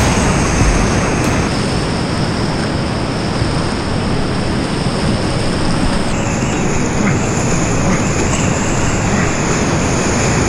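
Steady roar of rushing, churning whitewater in a big-volume river rapid, heard from a canoe running through the waves.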